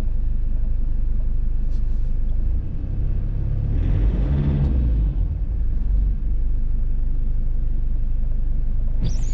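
Motor vehicle engine running with a steady low rumble. Its note swells and shifts briefly, about three to five seconds in, then settles back.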